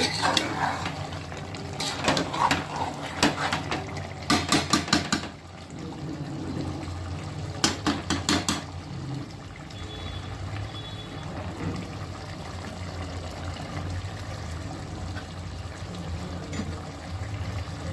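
A metal spoon working through a wet, juicy gongura chicken curry in a pan, clinking against the pan in three short clusters over the first half, over a steady low hum.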